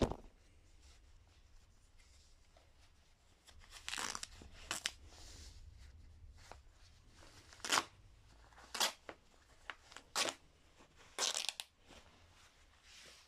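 White lab coat fabric being torn by hand in several short rips, a second or so apart.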